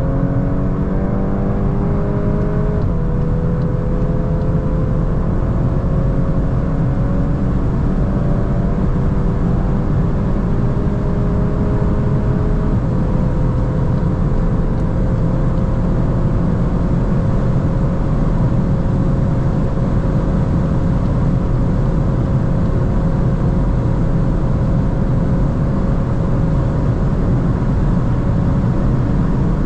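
Volkswagen Golf R's turbocharged 2.0-litre four-cylinder under sustained acceleration at high autobahn speed. It shifts up two or three times in the first half, then holds one gear while the engine note climbs slowly, over heavy wind and road rumble.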